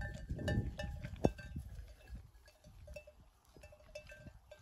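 Bells on a flock of sheep clanking irregularly as the animals move about, over a low rumble, with one sharp knock a little over a second in.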